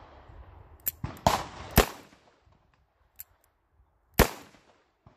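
Ruger GP100 revolver fired three times: two shots about half a second apart a little over a second in, then a third after a pause of about two and a half seconds, each with a short echo. A couple of fainter sharp clicks come in between.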